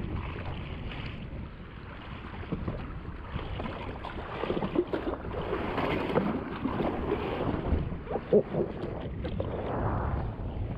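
Wind buffeting the microphone over sea water lapping around a jet ski on the ocean: a steady low rush with a few brief faint sounds in the middle.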